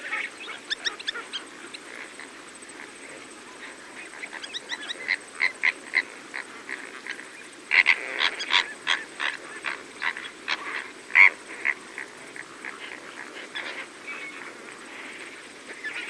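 Several greater flamingos calling while they feed: a chatter of short, goose-like calls in quick runs, thickest about halfway through.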